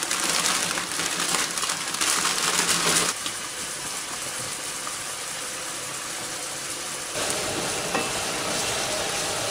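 Chicken strips sizzling in butter and oil in a frying pan, a steady hiss. About three seconds in it drops to a quieter stretch as pasta is stirred with a fork in a pot of boiling water. Near the end the sizzling picks up again while a wooden spoon stirs the chicken around the pan.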